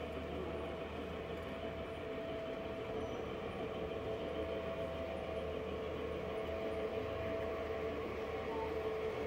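Lionel O-scale model trains running on three-rail track: a steady rumble of wheels and motors with a constant whine.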